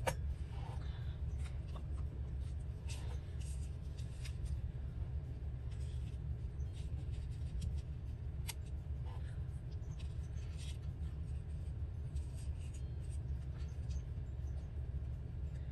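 Paper scraps being handled: scattered light rustles, rubs and ticks as pieces are shifted and pressed down, over a steady low hum.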